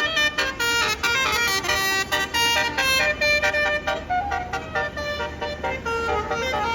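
Bus 'telolet' musical horn playing a quick tune of short notes, several notes a second, sounding without a break.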